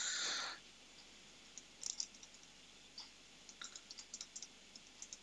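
Faint computer keyboard typing and mouse clicks, scattered and irregular. A short hiss comes right at the start and is the loudest sound.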